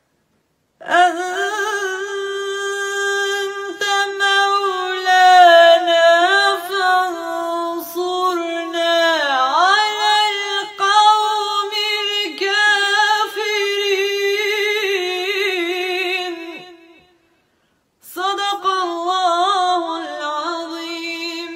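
A woman's solo unaccompanied voice chanting Quranic recitation in a long, melismatic line. She holds steady notes with sliding, wavering ornaments, pauses for a breath near the 17-second mark, then resumes.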